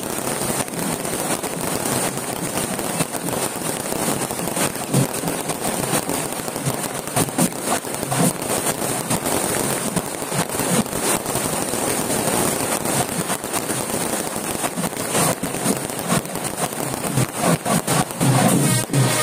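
Firecrackers going off in a long continuous run, a dense, rapid crackle of many small pops and bangs.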